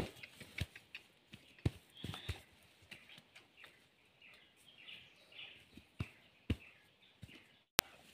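Scattered short knocks and scuffs as a bound pig is grabbed and handled on the forest floor, with birds chirping and a sharp click near the end.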